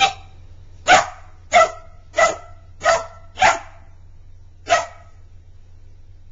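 Border Collie puppy barking: seven short, sharp barks at uneven intervals over about five seconds, then a pause.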